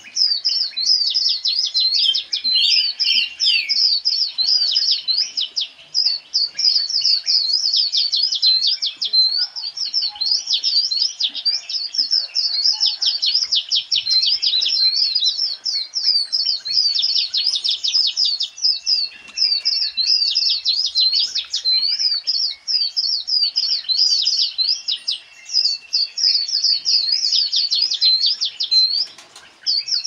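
A dense chorus of small birds chirping and twittering: rapid high notes overlapping without a break, with a few longer whistled notes now and then.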